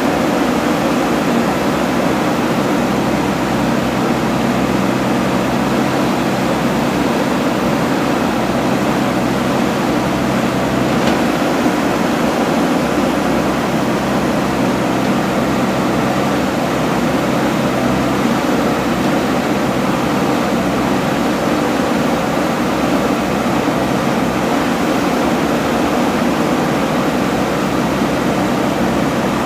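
Steady, unchanging machine noise with a low hum, constant in level throughout.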